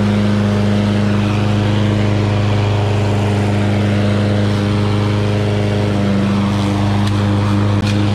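Briggs & Stratton 675 EXi single-cylinder engine on a walk-behind gas lawn mower running steadily at a constant speed.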